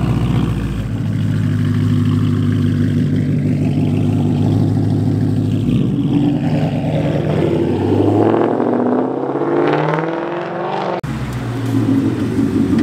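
2019 Ford Mustang GT's 5.0-litre V8 running at low revs as the car backs out, then revving up in a rising pitch as it pulls away about eight seconds in. A brief break near eleven seconds, after which the engine runs steadily again.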